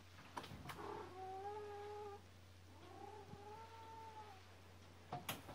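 A house cat crying: two long, drawn-out meows, each over a second at a fairly steady pitch, the second gently rising and falling. A few sharp clicks come just before the first cry and again near the end, over a faint steady low hum.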